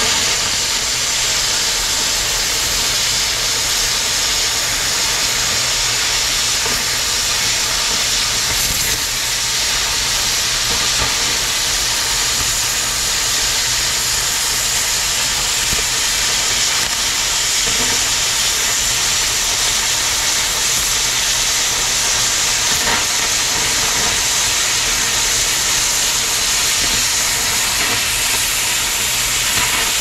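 Oxy-fuel cutting torch hissing steadily and loudly as it cuts steel.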